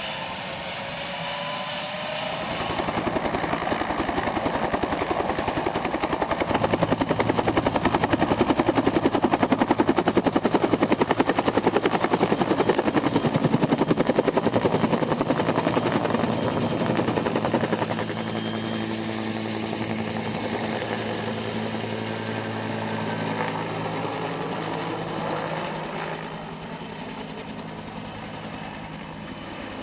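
Firefighting Bell UH-1 'Super Huey' helicopter departing: the fast beat of the main rotor and the turbine grow louder for the first half, then fade steadily as it flies away, leaving a faint low steady drone near the end.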